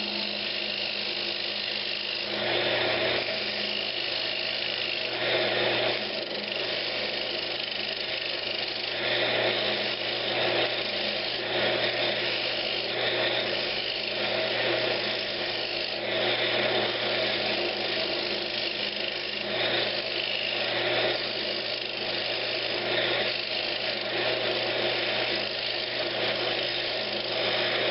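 Wood lathe running with a steady motor hum while a skew chisel cuts a tenon into a spinning pine knob blank, the cutting hiss swelling and easing every second or two with each pass.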